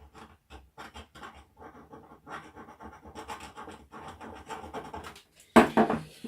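Rapid, rough scratching strokes on the metal end of an 18650 lithium cell, scuffing the surface to key it for soldering tabs. Near the end there is a brief, louder burst of noise.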